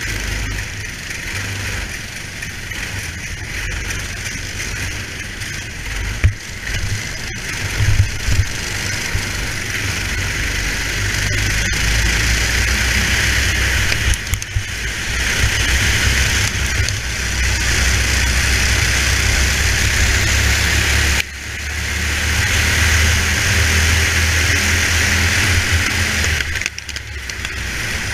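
Racing kart engines running in a pack, heard from the onboard camera of one kart, with the kart's own engine loudest. The sound grows louder partway through and drops away sharply three times for a moment before picking up again.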